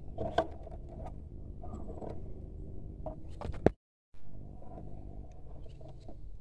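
Handling and rubbing noise from a camera on a rifle scope being swung around, over a steady low rumble, with a few light clicks and one sharp knock a little over three and a half seconds in, after which the sound cuts out for a moment.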